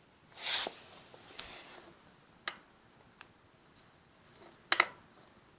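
Sharp metal clicks and a short scrape from handling a BMX peg against the bike's axle, ending in a loud double click; the peg will not go on that axle.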